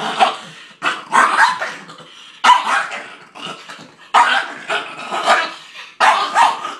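Small black-and-tan dog barking and snarling in about ten sharp, loud bursts, guarding its chew bones from an approaching foot.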